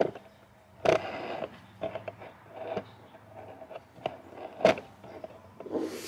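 Handheld fetal Doppler's speaker giving a low steady hum with scattered crackles and scrapes as the probe is moved over the belly. Two sharp knocks stand out, about a second in and near the end.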